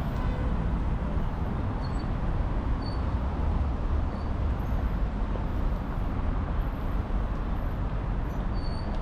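Steady city-street traffic noise, a continuous low rumble of road vehicles, with a few faint high chirps.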